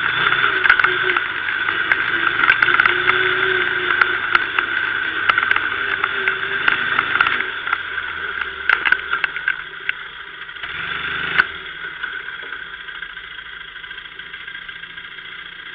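Kymco MXU 500 quad's engine running, with many short clicks and rattles over it. It drops away after about seven seconds, swells briefly once near eleven seconds, then stays lower.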